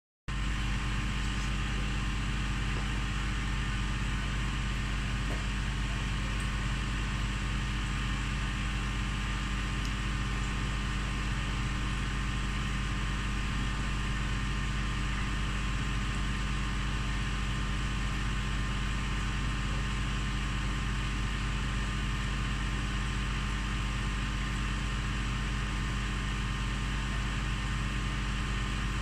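Steady hum of aquarium equipment running: a low electrical drone with several constant tones over an even hiss, unchanging throughout.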